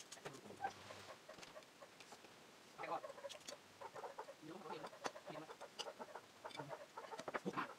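Metal spoons clicking and scraping against china plates and a bowl during eating, with chewing and mouth sounds; the clicks grow busier from about three seconds in.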